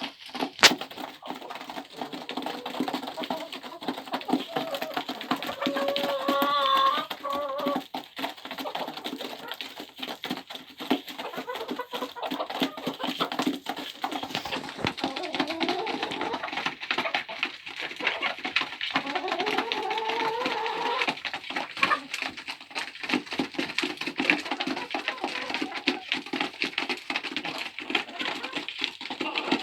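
Chickens pecking at feed, a dense run of quick taps, with a few drawn-out calls from the birds now and then.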